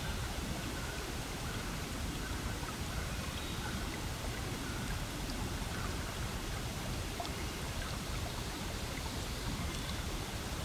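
Steady background hiss with a few faint ticks.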